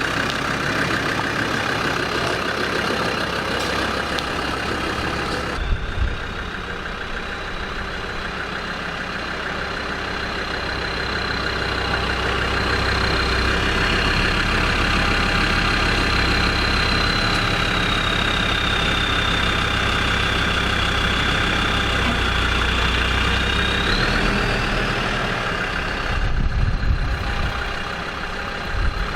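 Land Rover Discovery 2 TD5's five-cylinder turbodiesel engine idling steadily on fresh engine oil, with a faint high whine running over it.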